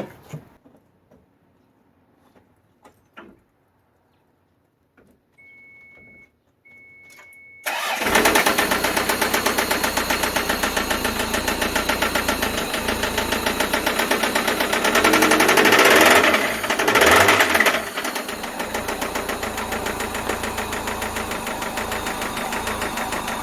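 After two short beeps, the Toyota MR2's 5S-FE four-cylinder engine starts about eight seconds in and runs with a loud, rhythmic knock, rising twice as it is revved near the middle. The knock follows the RPM: rod knock from a failed connecting rod with its bearings worn out.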